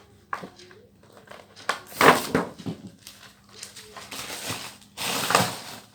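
Plastic packaging crinkling and crackling as it is handled, in uneven bursts; the loudest come about two seconds in and again near the end.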